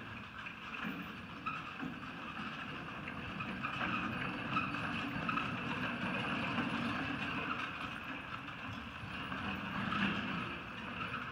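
Horse trotting in harness, pulling a four-wheeled marathon carriage over arena sand: a steady rolling noise from the carriage, with hoofbeats on the soft footing.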